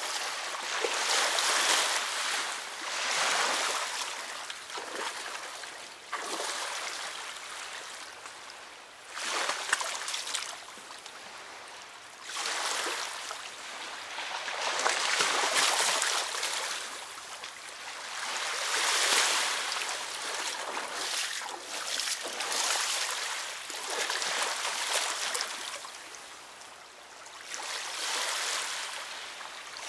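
Small river waves lapping and washing against the shore, swelling and dying away every few seconds.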